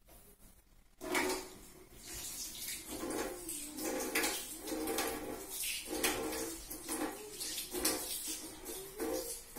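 Kitchen tap water running into a sink, turned on about a second in, with dishes and cutlery clinking as they are washed.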